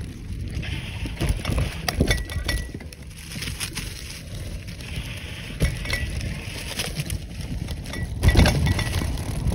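Bicycle ridden over a rough dirt trail: the frame and parts clink and rattle over bumps and roots against steady tyre and wind rumble, with a few brief high squeaks and a louder jolt about eight seconds in.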